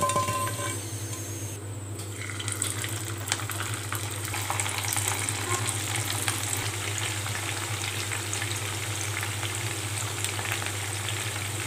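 Masala-coated prawns deep-frying in hot oil: a dense crackle and sizzle. It picks up a few seconds in as a fresh batch of prawns goes into the oil.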